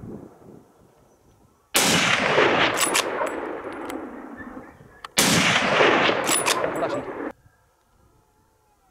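Two rifle shots about three and a half seconds apart, each a sharp crack followed by a long rolling echo that slowly fades; the second echo cuts off suddenly.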